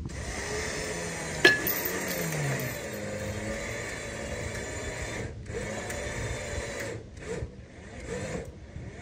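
Electric winch motor whirring under load as it hauls a utility pole upright, with a sharp clank about a second and a half in. It stops for a moment about five seconds in, then cuts in and out a few times near the end as the switch is let off and pressed again.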